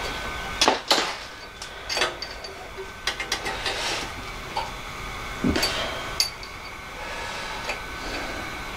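Hand tools clinking and knocking on the metal drive pulley and gearbox housing of a horizontal metal-cutting bandsaw: scattered sharp, irregular taps, with a quicker cluster about three seconds in.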